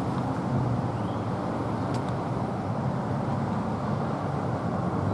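Steady low drone of a car's engine and road noise.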